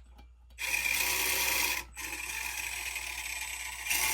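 Small electric motor and gear drivetrain of an Axial SCX24 1/24-scale crawler whirring under throttle, now running on a newly fitted ESC. It starts about half a second in, drops out briefly near two seconds, then runs on, louder near the end.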